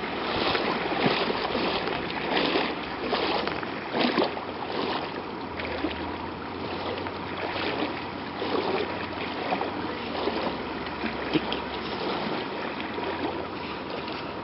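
Deep floodwater splashing and sloshing, with irregular swishes of moving water throughout.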